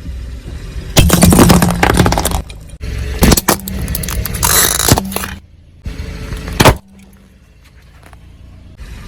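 Objects being crushed under a car's tyres: loud crunching and crackling in two long bursts, then one sharp crack, with the car's low steady hum underneath.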